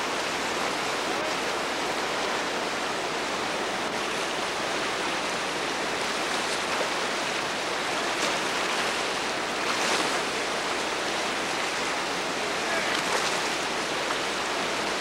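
Steady rush of whitewater rapids, the river churning through a big rapid, swelling briefly louder a couple of times.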